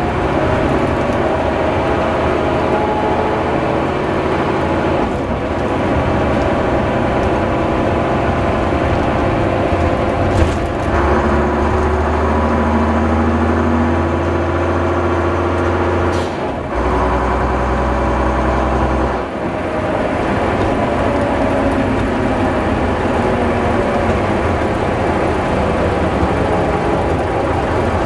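Leyland Olympian double-decker bus running under way, its diesel engine note stepping in pitch with gear changes about ten, sixteen and nineteen seconds in. The shifts are marked by short hisses of air, the 'sneezing gears'.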